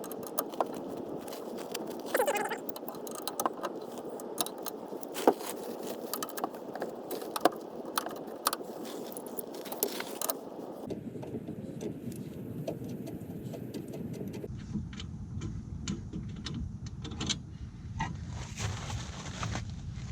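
Metal hand tools clinking and clicking against the front brake caliper and hub as the caliper bolts are loosened and pulled out. The sharp metallic clicks and knocks come irregularly throughout, over a steady hiss.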